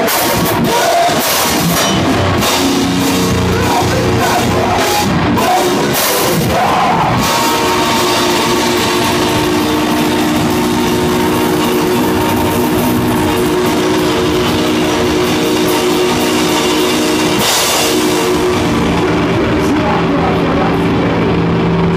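Live technical grindcore band playing loud: distorted guitars, bass and fast drums, with shouted vocals over the first few seconds. About seven seconds in, the music settles into long ringing chords under cymbal wash, with a cymbal crash near the end.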